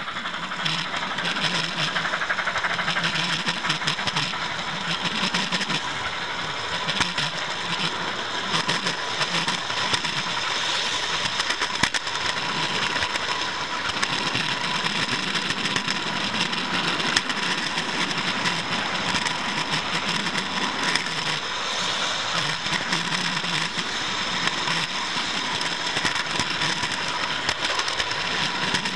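A model railway camera truck rolling along the track: a steady rattle and rumble of small wheels on the rails, with a thin steady whine.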